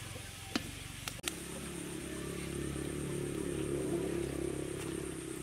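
A metal spoon clinks twice against an aluminium pot while stirring bubbling caramelising sugar. A low, steady, engine-like hum then comes in, swelling and easing off.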